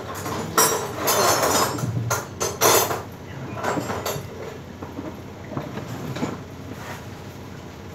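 Tools and plastic conduit fittings handled by hand on a concrete floor: scraping and clattering, loudest in the first three seconds, then a few fainter clicks.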